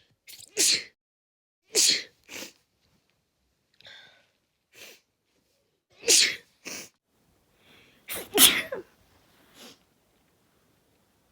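A person sneezing again and again, about eight sneezes, several coming in quick pairs, some led by a short in-breath. The loudest comes about eight seconds in.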